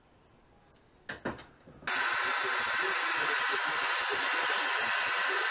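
A handheld propane torch lights about two seconds in and burns with a steady hiss, its flame heating a steel exhaust pipe so that it can be bent. A brief sound comes just before it lights.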